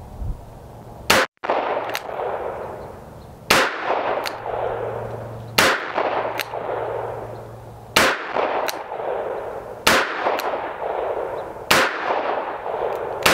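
Taurus Tracker 627 revolver with a ported 4-inch barrel firing .38 Special rounds in single action: sharp gunshots about two seconds apart, six of them and a seventh right at the end, which is fired double action. Each shot is followed by a fainter echo about half a second later and a ringing tail.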